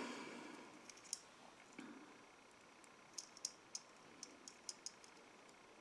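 Faint, light clicks and ticks of the wire, beads and crochet hook being handled while crocheting with wire, scattered at first and then a quick run of small clicks in the second half.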